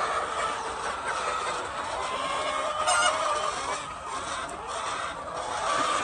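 A flock of laying hens clucking and calling in overlapping chatter, with one louder call about three seconds in.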